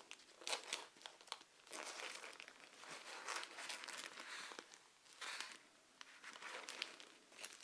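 Comic books being handled and shuffled: irregular rustling and crinkling of paper, with a few small clicks and taps.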